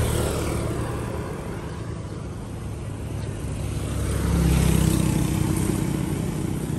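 Road traffic passing: one vehicle's engine fades away over the first couple of seconds, then another approaches, goes past about four to five seconds in and fades.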